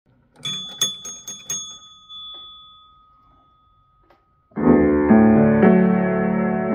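A few sharp clicks with a thin ringing tone in the first second or two. Then, about four and a half seconds in, an upright piano starts playing full sustained chords.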